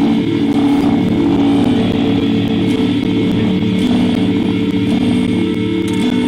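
Minimalist instrumental music built from repeating motifs, with steady sustained low tones and a buzzy, guitar-like timbre.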